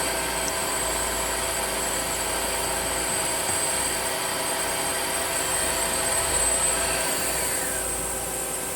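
Back drill spindle of a Tsugami S206 CNC Swiss-type lathe running at 5000 rpm: a steady, high whine with several even tones over machine hum. Near the end a tone falls in pitch as the spindle starts to wind down.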